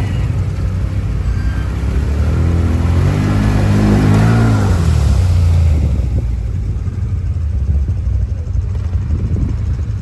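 Quad bike engine revving up to a peak about four seconds in, then easing off and running at lower revs.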